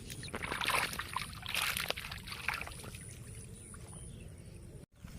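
Shallow water splashing and trickling, with a run of irregular splashes in the first two and a half seconds over a steady low rumble. The sound drops out for an instant near the end.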